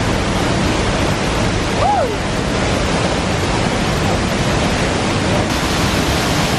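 Steady loud rush of a waterfall pouring into a pool, with a brief short voice-like call about two seconds in.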